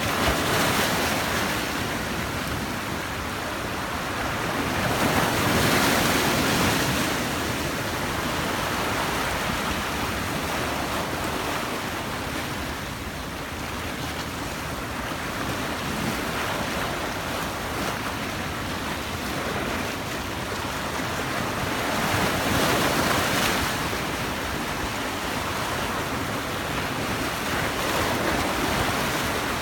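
Sea waves breaking and washing on the shore in a continuous rush, swelling louder several times as bigger waves break.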